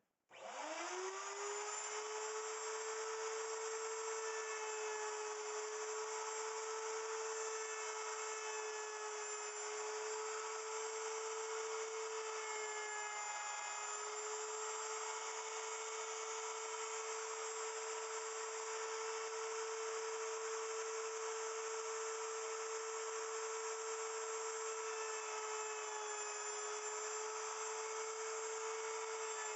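Wood router on a router milling machine switching on, spinning up within a second to a steady high whine, then running as it cuts an angled face into a cedar block. The pitch dips briefly a couple of times as the bit takes load.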